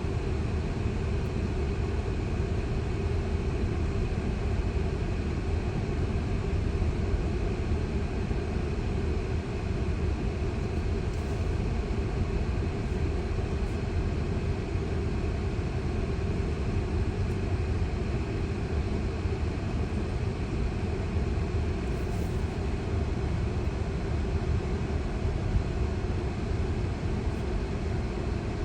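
Steady cabin noise inside a Tesla: an even low rumble with a hiss over it, without change.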